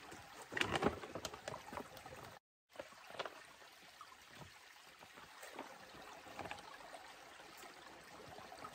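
Small stream trickling over rocks, with splashes and gurgles as a soft plastic water pouch is dipped in and filled. The loudest splashing and rustling comes about a second in, and the sound cuts out completely for a moment a little over two seconds in.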